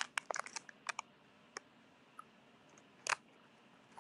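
A few scattered sharp clicks close to the microphone: a quick cluster at the start, single clicks about a second and a second and a half in, and a louder one about three seconds in, with faint room hiss between.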